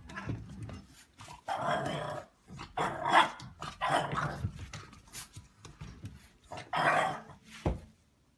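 A dog growling and giving short barks, in about five separate bursts with quiet gaps between them.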